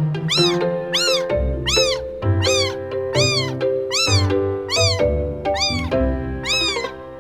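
A baby kitten meowing over and over, about a dozen short high-pitched cries, each rising and falling, one roughly every half second, over background music.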